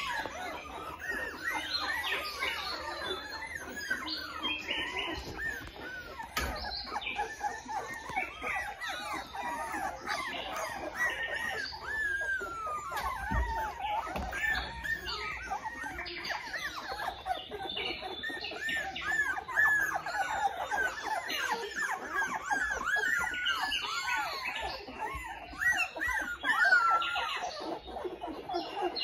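A litter of young Australian Shepherd puppies whining and squealing, many high, thin cries overlapping without a break, with a few louder squeals near the end.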